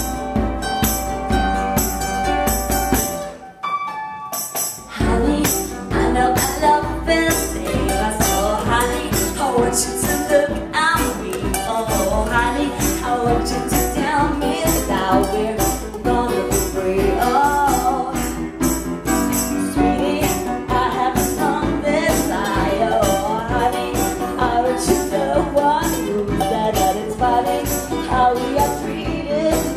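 Live music: a woman singing into a microphone over guitar and a steady percussion beat. The music breaks off briefly about three and a half seconds in, then carries on.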